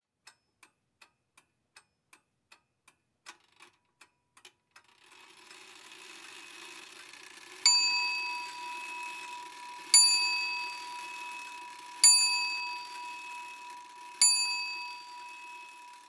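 Faint clock-like ticking, about two and a half ticks a second, for the first five seconds; then a low drone swells in and a bell is struck four times about two seconds apart, each strike ringing and fading.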